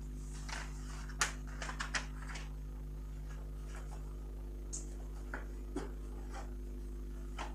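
Paper being loaded into a copier's manual-feed (bypass) tray: sheets rustling and the plastic paper guide clicking against the stack, mostly in a quick cluster about a second in, with a few lighter clicks later. A steady low hum sits underneath.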